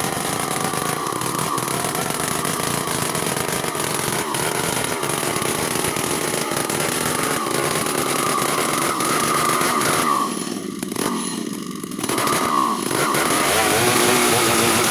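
Large two-stroke chainsaw ripping lengthwise along a log, running steadily at high revs under load. About ten seconds in the engine sound drops off briefly, then climbs back to full revs.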